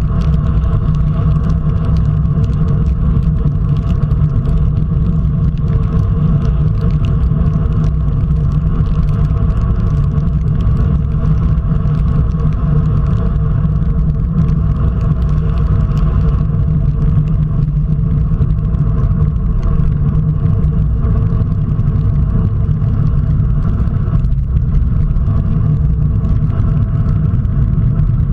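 Steady low rumble of wind on the microphone mixed with tyre noise on wet asphalt, picked up by a camera on a road bike riding at about 40 km/h in the rain.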